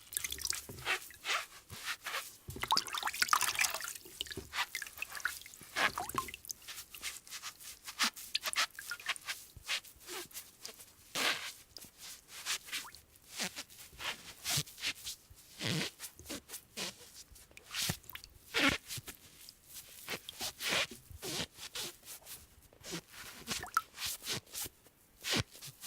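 Wet hands scrubbing and rubbing together, making irregular short squelches and wet clicks, denser for the first few seconds and then more spaced out.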